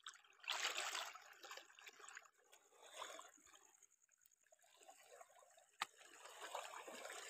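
Small wind-driven waves lapping and trickling over a pebble shore, faint and irregular, swelling and fading a few times. A single sharp click about six seconds in.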